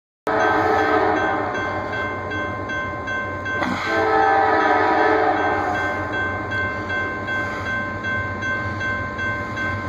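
Grade-crossing warning bell ringing steadily as the gates lower, with an approaching Norfolk Southern locomotive's horn sounding in long blasts, one at the start and another about four seconds in.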